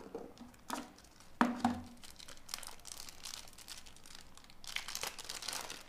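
Thin plastic wrapping crinkling as it is peeled off a mobile phone battery, among scattered handling clicks. A sharp click comes about a second and a half in, and the crinkling is densest near the end.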